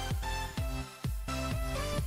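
Electronic dance music with a steady beat and a heavy bass line.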